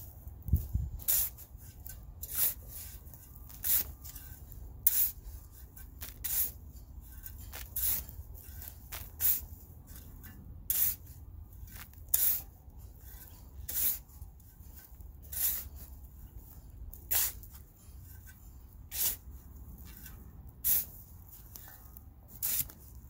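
A shovel repeatedly scooping and turning native clay soil blended with soil amendments: a short scrape about every second and a half.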